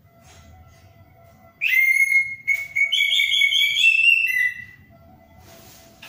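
Orange-headed thrush singing a loud whistled song phrase of about three seconds, starting nearly two seconds in: a held whistle with quick higher notes warbling above it.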